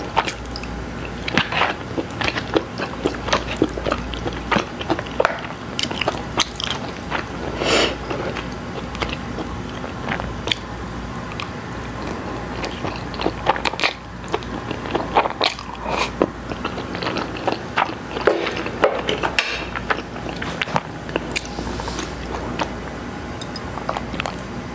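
Close-miked chewing and wet mouth sounds of a person eating spaghetti, with many short, sharp clicks spread irregularly throughout.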